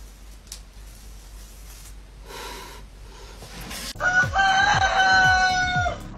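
Faint sizzling hiss of a hair straightener on wet hair. About four seconds in comes a loud rooster crow, held for about two seconds, over music with a deep repeating bass beat.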